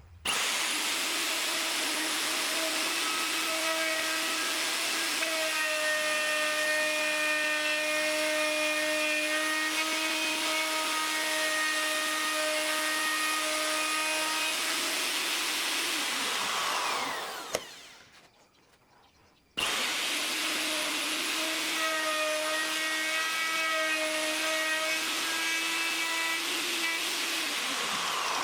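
A high-speed electric power tool runs at a steady pitch for about sixteen seconds, then winds down. After a pause of about two seconds it starts again suddenly and runs steadily until it winds down near the end.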